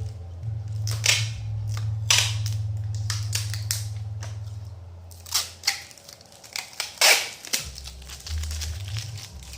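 Packing material being handled: sharp crinkling and tearing noises, the loudest about a second in, two seconds in and seven seconds in. A low bass line of background music runs under them and drops out around six seconds in.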